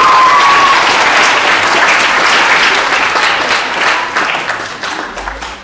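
Hall full of schoolchildren applauding, loud at first and gradually dying away near the end.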